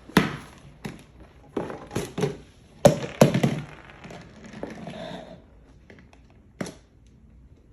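Irregular sharp taps and cracks with some crackling in between, as something is handled and broken open by hand. They come about a dozen times in the first five seconds, then thin out to a single tap near the end.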